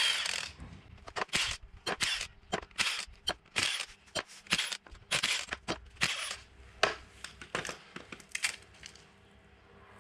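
Sharp metal clicks and clinks, a couple a second, as loosened bolts and steel brake hardware are pulled off and handled at the axle hub; they thin out near the end.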